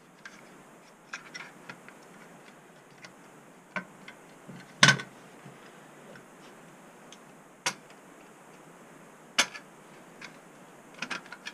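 Scattered light clicks and snaps as a 3.5-inch floppy disk drive is handled and its sheet-metal cover is pried off. Sharper clicks come about five, eight and nine and a half seconds in, and a quick run of small clicks near the end.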